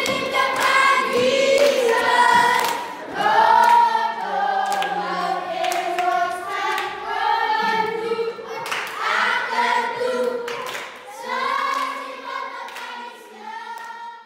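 A group of children singing a song together, with hand claps among the singing.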